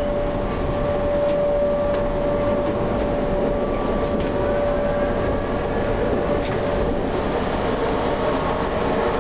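Tram moving slowly, heard from the driver's cab: steady running noise with a held whine that fades about halfway through, and a few light clicks.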